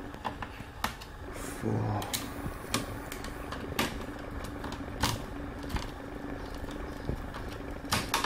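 Hand screwdriver clicking and scraping against screws and the sheet-metal chassis as a TV power supply board is screwed back down, giving irregular sharp ticks every second or so.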